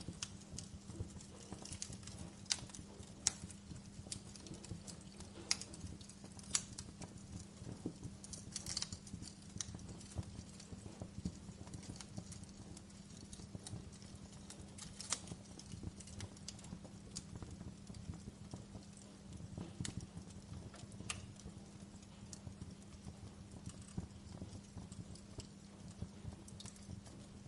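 Wood fire crackling: irregular sharp pops and snaps of varying loudness over a steady low hum.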